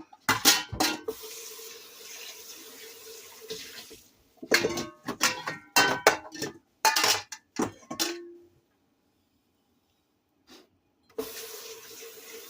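Kitchen tap running into a sink, with dishes and utensils knocking and clattering against each other in the middle as they are handled for washing. The sound drops out for a few seconds, then the running water comes back near the end.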